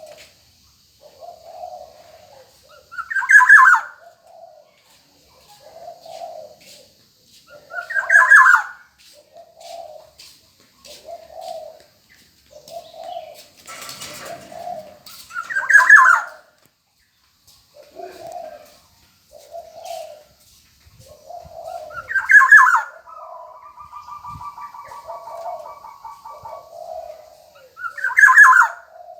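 Black-naped oriole calling: loud calls about every five to six seconds, with soft low notes repeated about once a second between them. Near the end comes a drawn-out buzzy note, and about halfway there is a short rustle.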